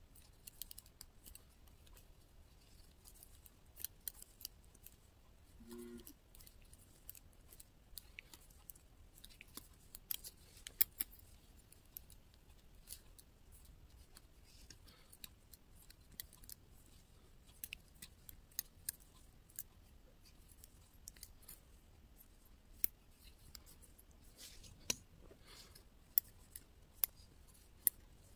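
Thin metal double-pointed knitting needles clicking and tapping against each other as stitches are worked in the round. The clicks are short, sharp and irregular.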